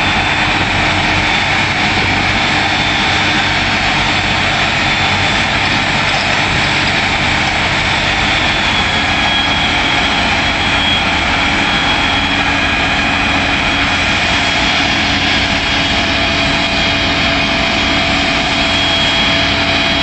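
A heavy engine running steadily at an unchanging pitch, with a dense steady hiss over it.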